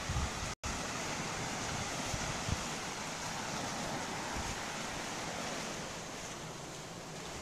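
Steady rushing noise of wind and sea surf, with a very brief dropout in the sound just over half a second in.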